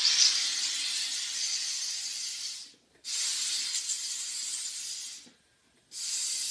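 SodaStream machine injecting CO2 gas into a bottle of wine: three loud hissing bursts, each about two seconds long, starting and stopping abruptly with brief pauses between them.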